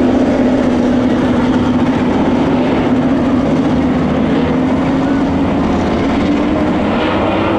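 A field of USRA B-Modified dirt-track race cars' V8 engines running together at racing speed, a loud, steady engine drone. The main engine note sags slightly, then climbs steadily as the cars accelerate off the turn.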